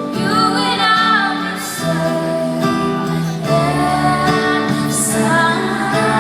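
A woman singing live to acoustic guitar accompaniment, recorded from the concert audience.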